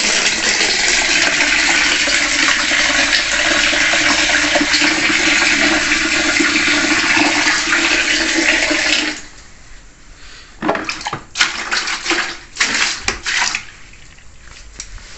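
Water poured from a plastic dipper splashing onto rocks in a plastic basin, a steady rush that stops abruptly about nine seconds in. A few short knocks and clatters follow.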